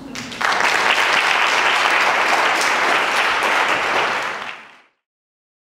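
Audience applauding, coming in about half a second in and holding steady, then fading out to silence after about four and a half seconds.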